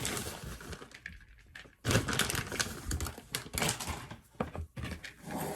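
Irregular clicking and rustling as a bag of shredded cheddar cheese is handled and emptied into a bowl of potato filling. The sound stops briefly about a second and a half in, then starts again.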